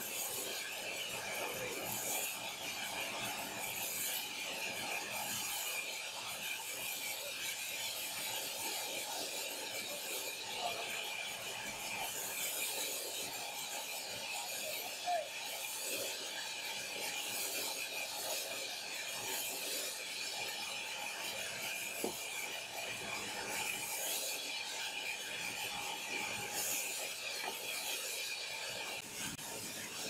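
Horizontal log band saw cutting lengthwise through a log, giving a steady rasping hiss of the blade in the wood, with a few faint knocks.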